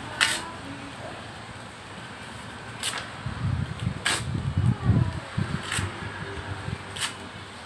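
Paper and cardboard kindling burning in a grill: a low, uneven rushing of flames that swells in the middle, with a few sharp crackles spaced a second or more apart.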